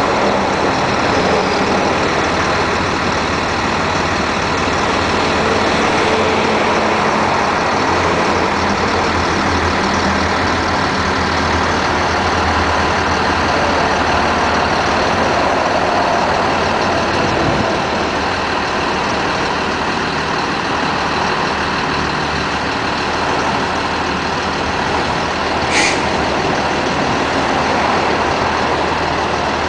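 Caterpillar diesel engine of a GMC Topkick service truck running steadily while it powers the truck's hydraulic crane as the boom is raised. A brief, sharp, high sound comes near the end.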